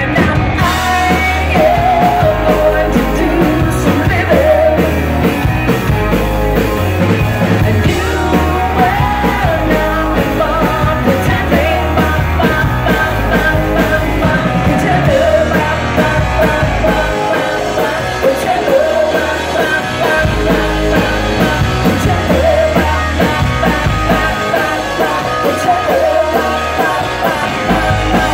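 Live rock band playing electric guitars and drums under a woman's lead vocal, heard from within the audience.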